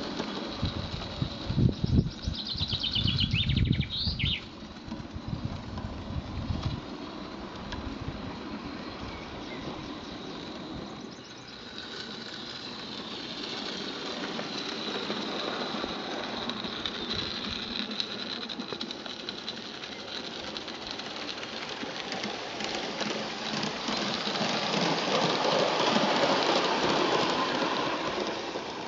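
Roundhouse live-steam Darjeeling Garratt model locomotive hauling carriages on a garden railway, the sound of the running train growing louder as it nears and loudest near the end. Gusts of wind on the microphone in the first several seconds, with a brief bird call a few seconds in.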